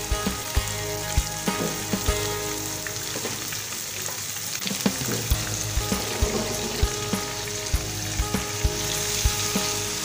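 Marinated minced-meat keema sizzling in hot oil in a nonstick wok, a steady frying hiss with a few sharp clicks scattered through.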